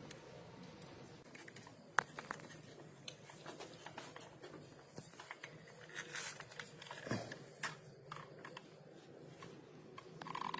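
Scattered light clicks, knocks and scrapes of metal parts and hand tools being handled while a scooter's CVT is reassembled, with one sharper knock about two seconds in and a short scraping sweep about seven seconds in.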